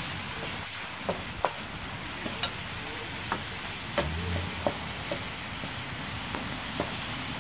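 Chicken, peppers and onions sizzling in sauce in a pan on a portable camp stove, stirred with a wooden spoon. A steady frying hiss runs throughout, with irregular sharp clicks.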